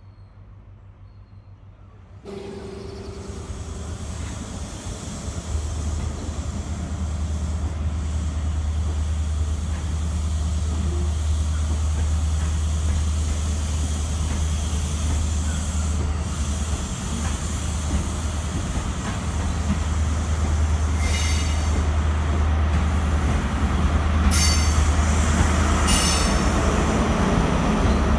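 Diesel train running into the platform with a steady low engine drone, and wheels squealing three times on the curved track near the end.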